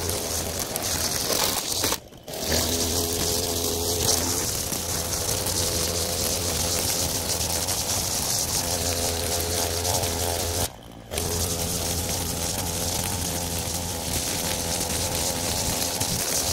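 String trimmer running steadily, its engine holding one pitch, with the sound cutting out briefly twice.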